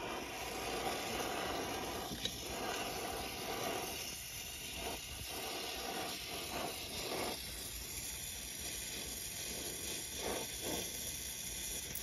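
Brazing torch flame hissing steadily as it heats the braze joints of a refrigerant service valve to unsweat it, with a few faint knocks of handling.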